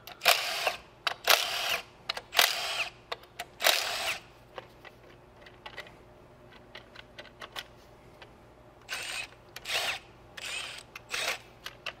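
Milwaukee cordless ratchet running in short bursts, spinning out the ignition coil bolts on the 2.2-litre engine: four quick runs in the first four seconds, then four more near the end.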